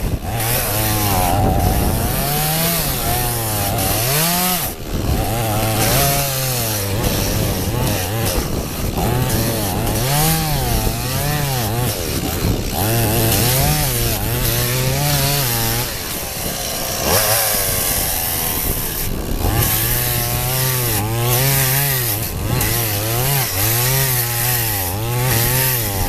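Two-stroke chainsaw cutting through ice, its engine pitch rising and falling every second or two as it works through the cut.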